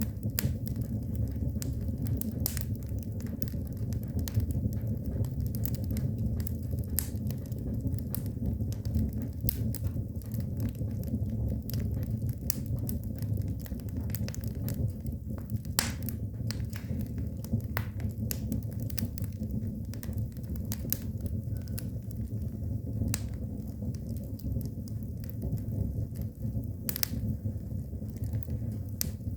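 Fire burning: a steady low rumble with irregular sharp crackles and pops, several a second.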